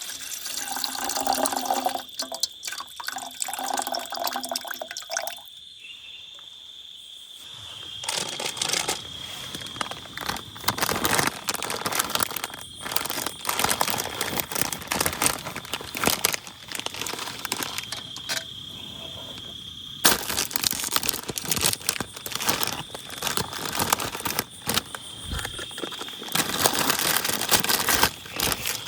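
Water running, splashing and dripping in a string of short spells, full of small irregular ticks, with sudden changes in the sound about five, eight and twenty seconds in.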